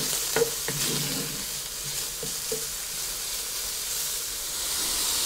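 Pork and bacon sizzling steadily in hot oil in a Dutch oven, with a few light clicks near the start.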